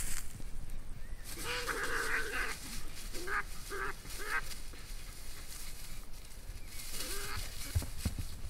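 Two European badgers screaming as they fight: a call of about a second, then three short calls in quick succession, and another short call near the end.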